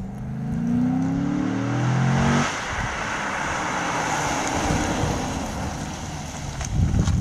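A Dodge Charger's 5.7-litre Hemi V8 accelerating, its note rising. About two and a half seconds in the engine note drops away, leaving a steady rush of tyre and wind noise.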